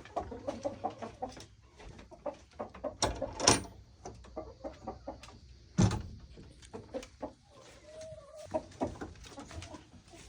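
A flock of chickens clucking in many short, overlapping calls. Louder sharp knocks cut through about three seconds in and again about six seconds in.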